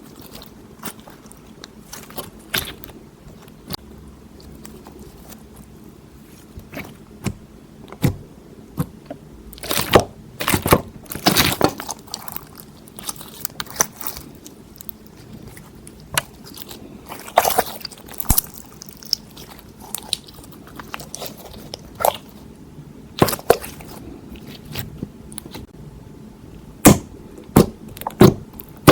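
Slime being squeezed, pressed and stretched by hand, giving irregular wet clicks, pops and squelches, some in quick clusters.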